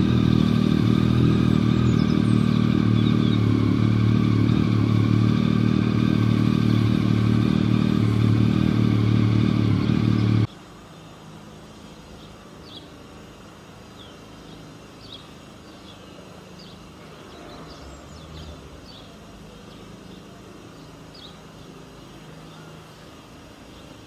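A motor vehicle's engine running loudly and steadily, cutting off abruptly about ten seconds in. Quieter outdoor ambience follows, with faint, brief high chirps of small birds.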